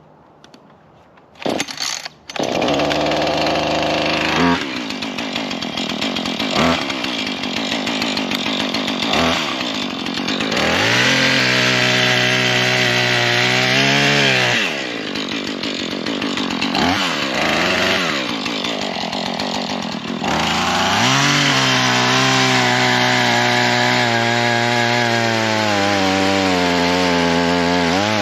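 Husqvarna 440 two-stroke chainsaw started after a couple of short bursts about two seconds in. It then runs and is revved through cuts, its pitch rising and dropping several times as it works and comes off the throttle.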